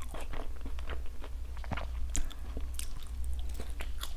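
Close-miked chewing of a soft, chewy glutinous rice cake (bánh bao chỉ), with many small wet mouth clicks and smacks over a low steady hum.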